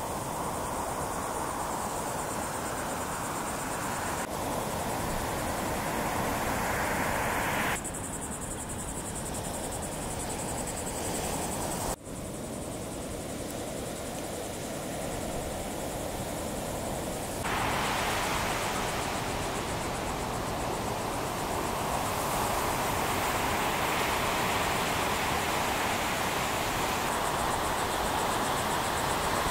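Steady noise of breaking ocean surf and wind, with no distinct events. Its tone shifts suddenly several times, at cuts between shots.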